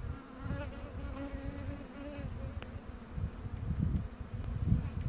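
Yellow-faced bumblebee (Bombus vosnesenskii) queen buzzing: a wavering low hum through about the first half, then uneven low rumbling with a few faint ticks.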